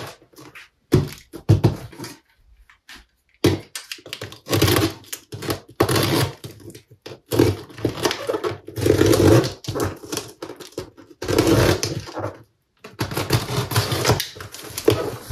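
A cardboard parcel set down on a wooden desk with a couple of sharp thumps, then the packing tape sliced with a small cutter and ripped off the box in several noisy pulls, with cardboard rustling.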